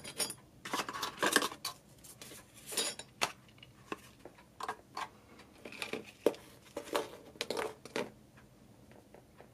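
Small parts being handled: a plastic bag of screws and metal mounting pieces crinkling and clinking, and cables and connectors clicking onto a cardboard surface. The handling noises come in quick irregular clusters and stop about eight seconds in.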